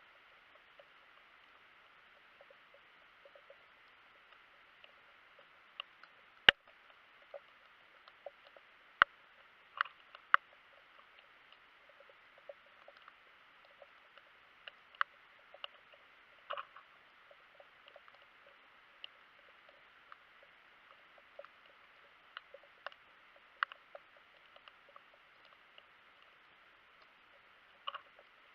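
Underwater ambience: a faint steady hiss with irregular sharp clicks and crackles, a few louder single clicks standing out.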